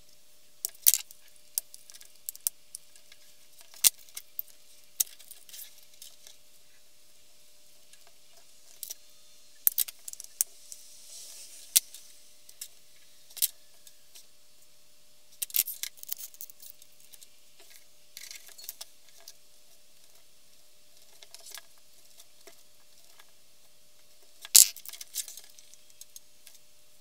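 Scattered small clicks, taps and rustles of hand-stitching thick leather: thread snips clicking and thread pulled through the leather on a cutting mat. The clicks come at irregular intervals, and one sharp knock near the end is the loudest.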